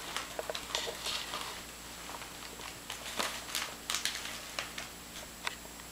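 Crumpled Christmas wrapping paper rustled and crinkled by hand, in irregular short crackles that are busiest about three to four seconds in.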